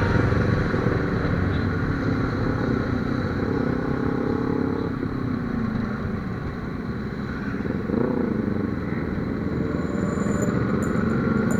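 Benelli TNT300's parallel-twin engine running under riding, dropping in pitch as the bike slows about halfway through, then pulling back up about two-thirds of the way through, with wind and road noise underneath.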